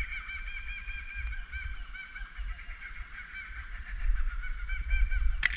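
Laughing kookaburras calling in a rolling chorus of rapid, repeated notes. Near the end a single sharp splash: the black bream being dropped back into the water.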